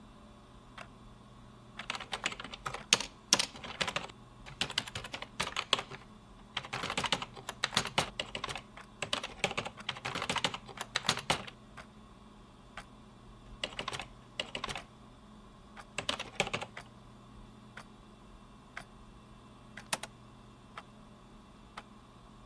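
Typing on a computer keyboard: a long run of fast keystrokes lasting about ten seconds, then two short flurries and a single keystroke near the end.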